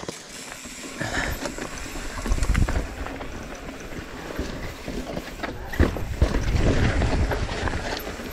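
Mountain bike riding fast down a rough dirt and rock trail: tyres rumbling over the ground, with several sharp knocks and rattles from the bike, and wind buffeting the microphone.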